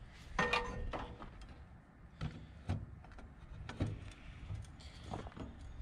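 A few short knocks and scrapes, one with a brief metallic ring about half a second in, as a heavy corded circular saw is handled and set against a steel truck frame rail. The saw is not running.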